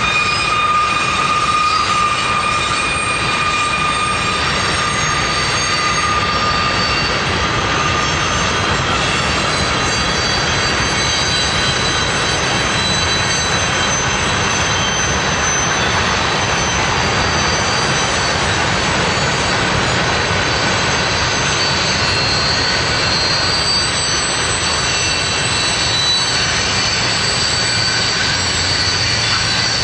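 Freight train cars rolling past close by, a steady loud rumble with thin wheel squeals that fade in the first few seconds and come back faintly, higher up, later on.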